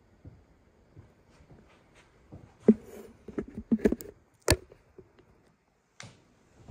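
Handling noise: a cluster of sharp knocks and clicks, the loudest about two and a half and four and a half seconds in, with one more knock near the end, as things are moved and set down on a table.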